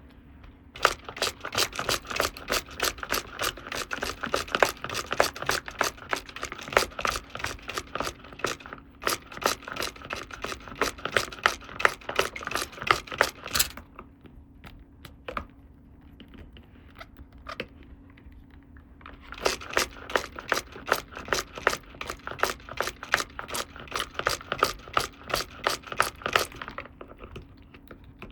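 Toy packaging being torn open and handled: a rapid run of sharp crackles, several a second, in two long stretches with a pause of about five seconds between them.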